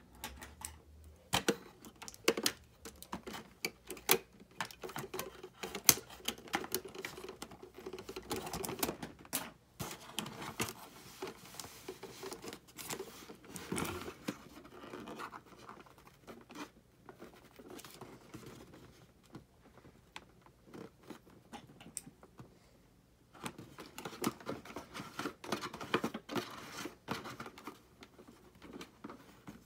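Hands handling and pulling toy pieces out of a cardboard box insert: irregular scraping and tearing of cardboard with many light plastic clicks and taps.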